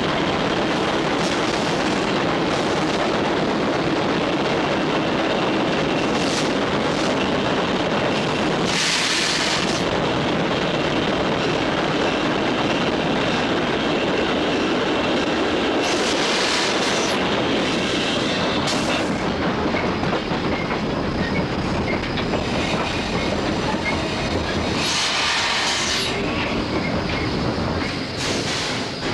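Heard from the cab, the US Army 2-8-0 steam locomotive No. 610 and its train run with a steady, loud noise of wheels on the rails. Three short bursts of hissing come about 9, 16 and 25 seconds in.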